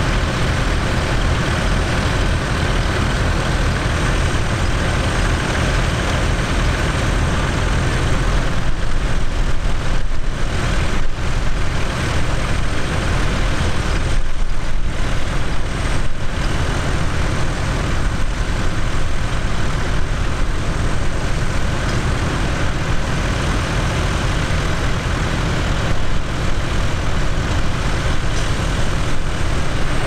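Tractor diesel engines running steadily as the tractors pull mounted ploughs through the field.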